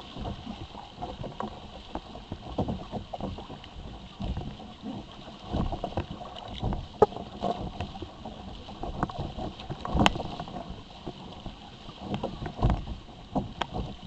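Water slapping and splashing against the plastic hull of an Ocean Kayak Malibu Two XL sit-on-top kayak under sail, with irregular knocks, the sharpest about a third of the way in and again past the middle. Wind hisses over the microphone throughout.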